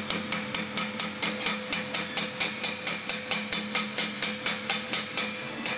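Sheet metal clamped in a bench vise being hammered over the vise jaw to fold a flange: quick, even hammer blows, about five a second, keeping a steady rhythm.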